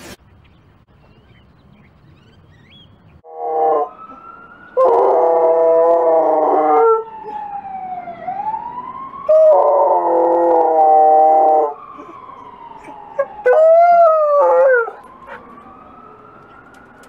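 Wolamute (wolf–malamute mix) howling: two long, loud howls, then a shorter, wavering howl near the end. Underneath runs a fainter wail that glides up and down.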